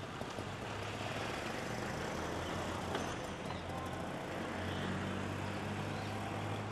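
Road traffic noise with a vehicle engine running close by, its low drone growing louder about two-thirds of the way through.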